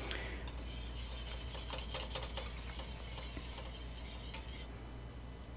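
Wire whisk stirring and scraping thick gravy in a stainless steel saucepan, a faint rhythmic scratching that stops about three-quarters of the way through.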